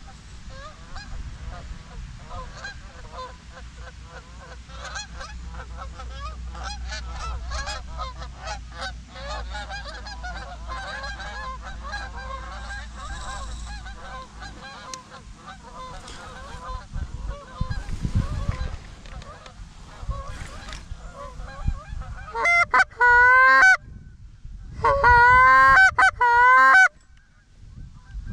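A flock of Canada geese honking in flight, many overlapping calls, then two loud, close bursts of rapid honks near the end.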